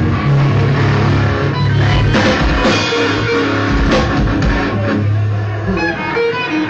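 Loud rock music from a band: electric guitar over a drum kit, with two heavy drum hits about two and four seconds in.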